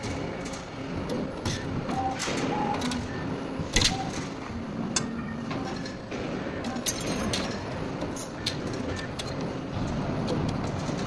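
CNC wire bending machine at work bending steel wire: steady mechanical running with repeated clicks and clanks, the loudest a sharp clank about four seconds in.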